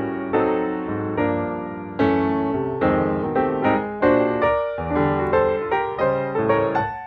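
Background piano music: a gentle tune of struck notes and chords, each note fading after it is played.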